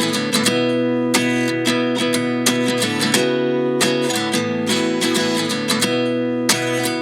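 Background music: an acoustic guitar strumming chords in a steady rhythm, the instrumental intro of a pop song.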